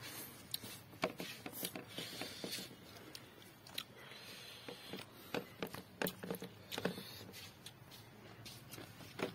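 Close mouth sounds of a person eating a spicy snack: chewing and lip smacks with frequent short sharp clicks, and a few breathy hisses.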